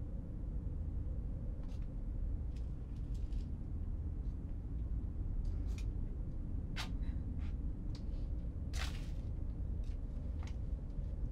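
A steady low rumble with a faint hum, with scattered faint clicks and rustles. A louder brief rustle or scrape comes about nine seconds in.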